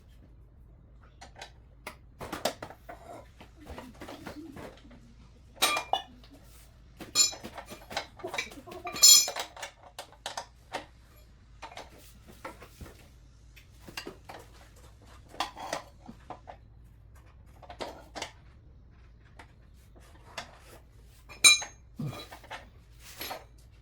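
Metal tools and parts clinking and clanking at irregular intervals during hand work on a motorcycle's foot brake pedal assembly, with a few sharp ringing metallic knocks, the loudest about nine seconds in and again near the end.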